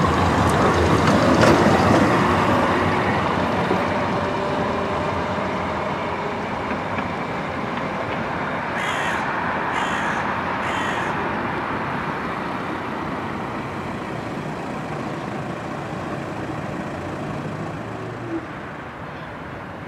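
Alstom Citadis electric tram running past close by, its rolling noise on the rails fading away steadily. About halfway through, three short harsh calls come about a second apart.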